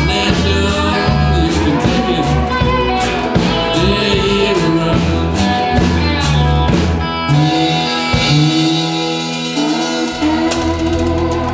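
Live blues-rock band playing cigar box guitars with drum kit and singing. About seven seconds in, the drums and low end drop out, leaving the guitars ringing, and the low end comes back near the end.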